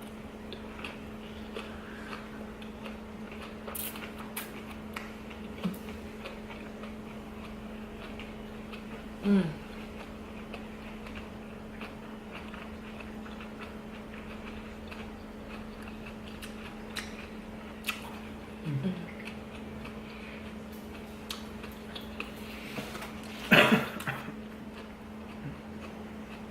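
A person chewing and eating a sauce-dipped spring roll close to the microphone: wet mouth clicks and smacks scattered throughout, a couple of brief vocal sounds near 9 and 19 seconds, and a louder mouth sound near the end, over a steady low hum in the room.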